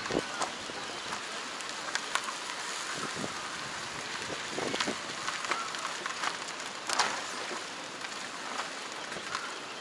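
Car tyre rolling slowly over a gravel and dirt road, heard from close beside the wheel: a steady gritty crunch with scattered pops and knocks of small stones, the loudest about seven seconds in.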